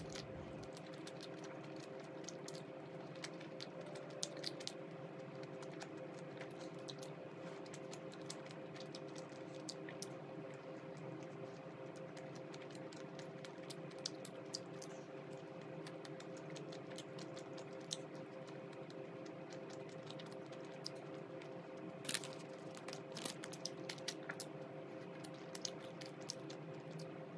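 A steady low hum of several held tones, with faint scattered clicks and small taps throughout, a little more frequent near the end.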